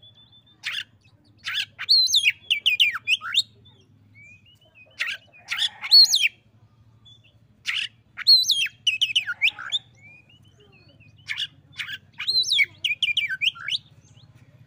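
Oriental magpie-robin singing: short phrases of sweeping whistled notes and quick trills, about five bursts separated by brief pauses.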